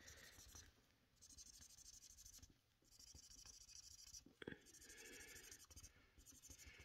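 Faint scribbling of a dry-wipe marker over old pen marks on a savings tracker sheet, in several short spells with brief pauses, the marker laid over the old ink so it can be rubbed off.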